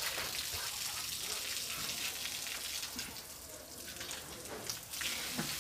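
Running or splashing water: a steady hiss that drops in level about three seconds in and returns near the end.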